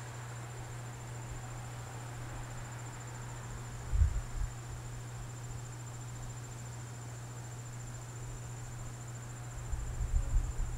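Crickets chirring steadily in one continuous high tone, over a low steady hum. A brief low bump comes about four seconds in, and more low thumps near the end.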